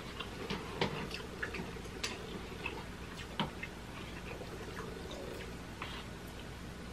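Metal spoon and chopsticks clicking and scraping against instant noodle cups while two people eat. A few scattered light ticks sit over a faint steady hum.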